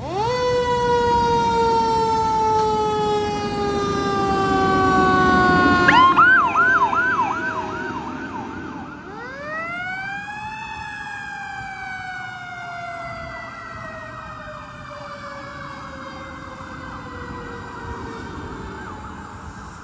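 Fire engine sirens. A siren winds up sharply and then slowly falls in pitch; about six seconds in, a rapid yelping siren cuts in at the loudest point, and about three seconds later a siren winds up again and then slowly sinks and fades.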